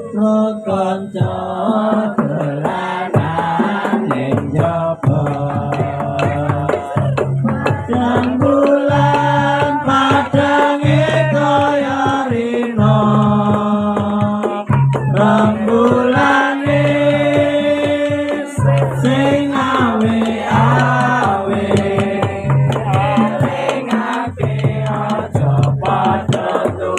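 Javanese chant-like singing, a voice holding and bending long notes, over wayang kulit accompaniment music with drum strokes beneath.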